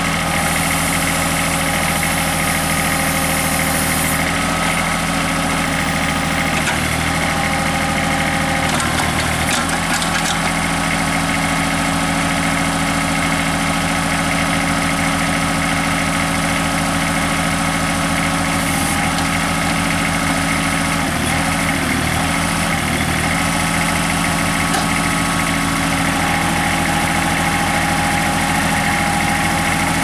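Kubota B21 compact tractor's three-cylinder diesel engine running steadily while the backhoe is worked, its note changing briefly a few times.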